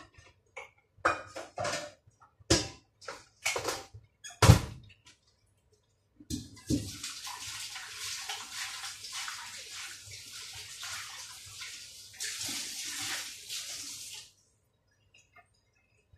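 A few sharp knocks and clanks, the loudest about four and a half seconds in. Then a kitchen tap runs into the sink for about eight seconds and is shut off abruptly.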